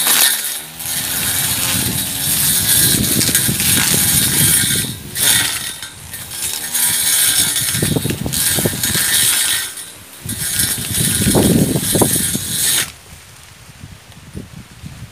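Homemade electric grass trimmer, a DC 775 motor run on 24 volts spinning a sharpened steel-plate blade, running at high speed and cutting grass and weeds, with rough bursts of chopping as the blade bites into the growth. Its pitch dips and recovers a few times under the load, and the sound stops suddenly about 13 seconds in.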